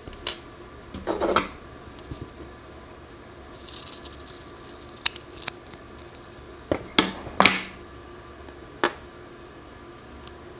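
Small clicks, taps and brief scraping sounds of small parts and tools being handled on a workbench, scattered irregularly, with two short scratchy clusters about a second in and around seven seconds.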